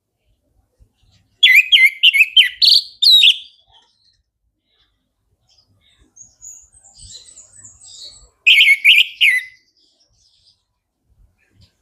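Orange-headed thrush singing: two loud bursts of rapid whistled notes a few seconds apart, with fainter, higher twittering between them.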